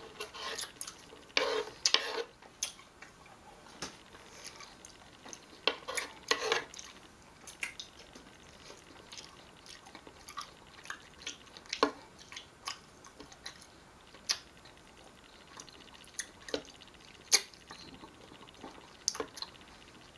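Tangerine segments being chewed: wet, juicy mouth clicks and squelches at irregular intervals, with a couple of longer wet bursts.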